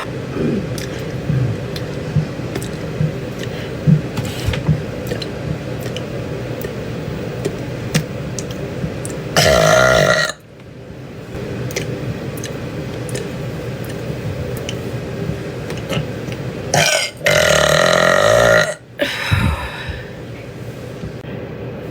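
A woman burping deeply, over and over. Two loud burps stand out, one about nine seconds in lasting about a second and a longer one around seventeen seconds in, with a shorter burp right after it and a low rumble between them.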